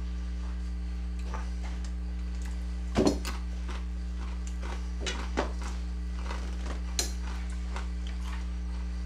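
A few short, sharp crunches and crackles of crisp, heavily powder-coated tortilla chips being picked up and eaten. The loudest comes about three seconds in, with smaller ones later, over a steady low electrical hum.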